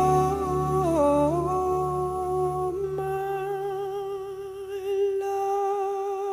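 Music: a long hummed vocal note, held steady, dipping briefly about a second in and then wavering, over soft low accompaniment that fades out about halfway through.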